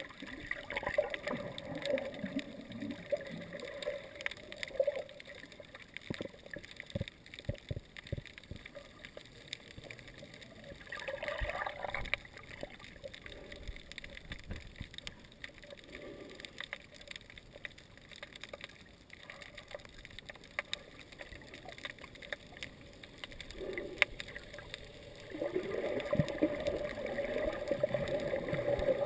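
Muffled underwater sound heard through a camera housing: water gurgling and sloshing around the camera, with scattered clicks and knocks. It grows louder near the end.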